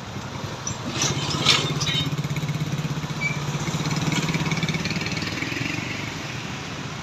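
A road vehicle's engine running past, a low pulsing drone that swells about a second in and fades again near the end, with a brief hissy burst as it comes close.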